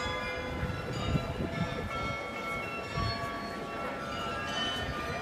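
Bells of the Munich Rathaus-Glockenspiel ringing, many overlapping tones at different pitches that sound one after another and ring on. Under them a low murmur of the crowd, with a few low bumps on the microphone.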